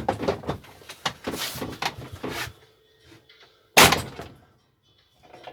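Hand tools clattering against a lawn mower engine while an over-tightened spark plug is wrenched out, then one loud sharp knock almost four seconds in.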